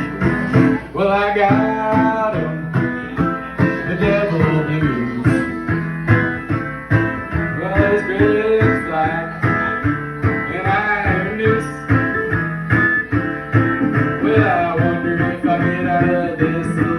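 Banjo picked in a blues song, with a voice singing over it.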